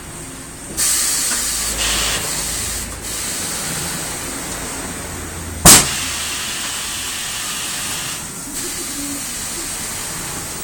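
Compressed air hissing steadily, with one sharp, very loud bang a little past halfway.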